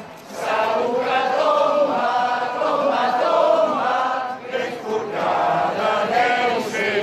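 Large crowd chanting together in unison, in long sung phrases with a brief dip about four and a half seconds in.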